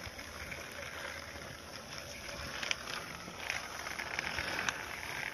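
Plastic toy tractor and trailer pushed by hand over concrete, its small wheels rolling and scraping with a gritty crackle, with two sharp clicks, one near the middle and one near the end.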